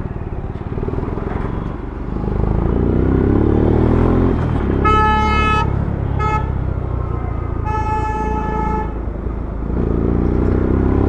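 Yamaha FZ-S motorcycle engine running in town traffic, rising in pitch as it picks up speed twice. In the middle a vehicle horn honks three times: a short blast, a brief toot, then a longer blast.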